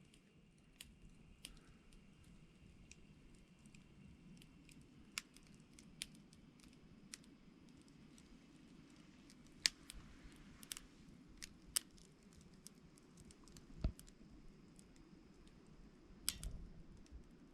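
Faint, scattered sharp clicks and small taps, a dozen or so at irregular intervals, over a quiet background.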